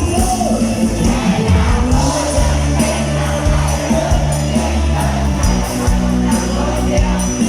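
Live band playing a pop song through a PA, a singer's voice over bass and drums.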